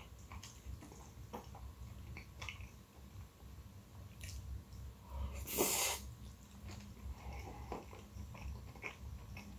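Close-miked eating of saucy instant noodles: wet chewing and mouth smacks with small clicks of a metal fork against a glass plate, and one louder airy rush about halfway through.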